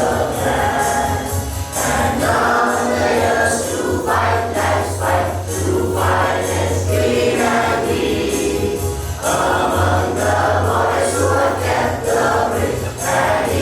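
Many voices singing an anthem together in unison, over a steady low hum.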